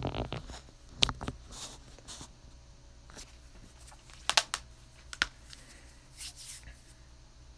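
Scattered sharp clicks and taps with a few short rustles, the loudest about a second in and twice more around the middle, over a low steady hum.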